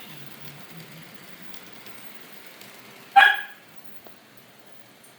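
A dog barks once, sharply, about three seconds in, over the faint steady running of model trains on the layout.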